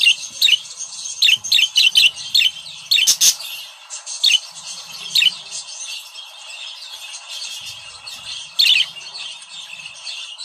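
Budgerigars chirping: short, sharp, high calls come quickly in the first few seconds and more sparsely after. Under them runs continuous high warbling chatter.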